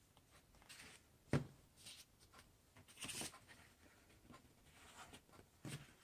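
Paper rustling in short bursts as folded paper airplanes are handled and set down on a table, with a sharp knock just over a second in and a softer thump near the end.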